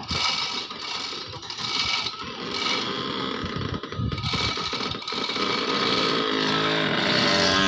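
A small engine running, its pitch and loudness rising in the last second or two as it revs up.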